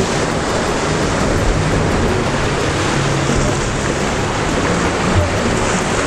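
Sea surf surging and splashing among coastal rocks, a steady rush of water.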